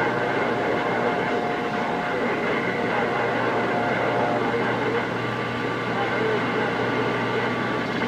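Galaxy CB radio's speaker playing a strong, noisy incoming AM signal, a steady harsh din with held tones through it and no clear words. This is the bleed-over the operator blames on a station called Switchblade drowning out his channel.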